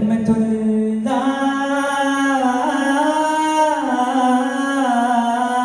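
Unaccompanied male voice singing a slow Arabic salutation, holding long notes that glide up and down, with no drumming. This is the lead singer's opening call of an aravana muttu, sung before the frame drums join.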